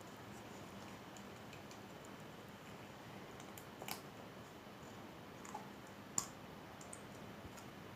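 Faint handling of a small object or its packaging: a few scattered light clicks and taps over a low steady hiss, the sharpest about four and six seconds in.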